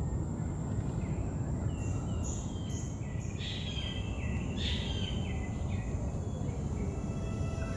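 A bird calling in a run of short repeated chirps, about two to five seconds in, over steady low outdoor background noise.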